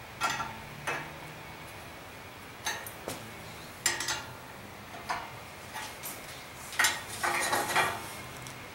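Irregular sharp metallic clinks and scrapes as hand tools and parts strike a sheet-steel forge fire pot clamped in a bench vise while it is being assembled, with a quicker run of clinks near the end.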